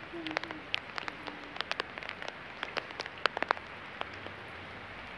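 Rain falling: a steady hiss with many sharp ticks of drops striking a nearby surface, the ticks dense at first and thinning out after about three and a half seconds.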